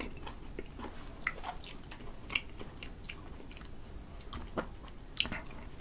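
Close-miked mouth sounds of a person chewing a last mouthful, with scattered soft clicks.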